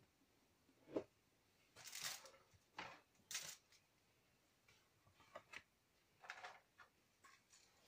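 Mostly quiet, with faint scattered rustles and light clicks of small objects being handled. A slightly longer rustle comes about two seconds in.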